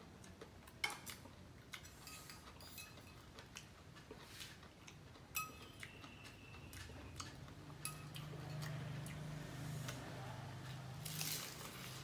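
Chopsticks and a spoon clinking lightly against plates and bowls as salad is scooped onto crackers, with scattered small clicks and one brief ring about halfway. Near the end comes a short crunch as a loaded cracker is bitten, over a low hum that sets in during the second half.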